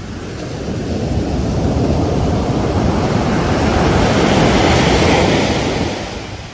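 Ocean surf breaking on a beach: a wave's rushing noise swells over a few seconds, peaks, then dies away near the end.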